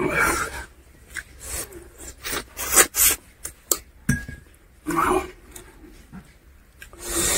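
Close-miked mouth sounds of a man eating rice and curry by hand: wet chewing, smacks and slurps, with a string of sharp clicks and a few longer noisy bursts.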